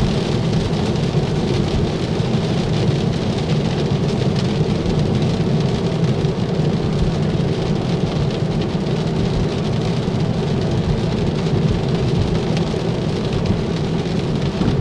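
Steady rain falling on a Tesla Model 3 while it drives, heard inside the cabin, over a low, even rumble of tyres on a wet road.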